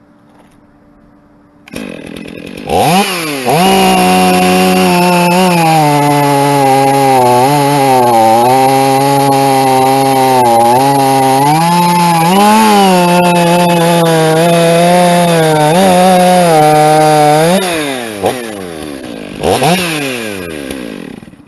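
Large two-stroke chainsaw revved to full throttle and cutting through a log, its engine pitch sagging and recovering under load through a long cut. Near the end it revs freely, is blipped once more, and the revs fall away.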